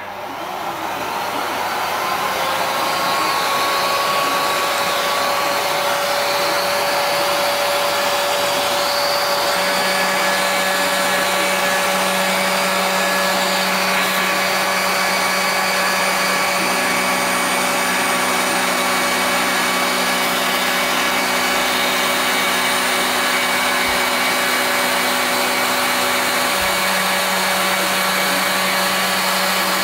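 Proxxon IBS/E rotary tool, serving as a CNC router spindle, spinning up over the first few seconds and then running at speed with a steady whine. From about ten seconds in, the CNC's stepper motors add a low steady hum as the axes move the spindle toward the wood, with a second hum tone from about seventeen to twenty-six seconds.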